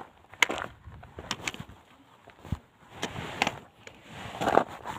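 Footsteps crunching on a loose gravel and rock trail, irregular steps with scattered small stone clicks.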